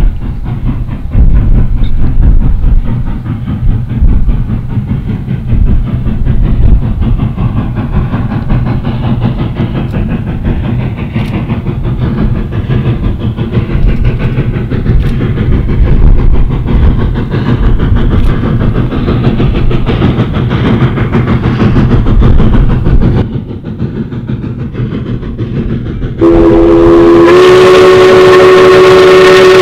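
A steady, fluctuating low rumble, then near the end the steam whistle of Nevada Northern Railway locomotive No. 81 blows one loud, long blast, several tones sounding together as a chord.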